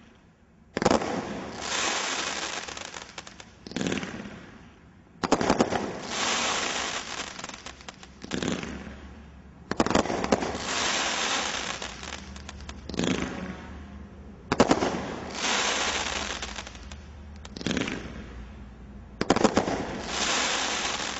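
Turbulent Terror, a category 3 combination Roman candle cake, firing a series of about nine shots. Each is a sharp pop followed by a second or two of crackling as the stars break and fade.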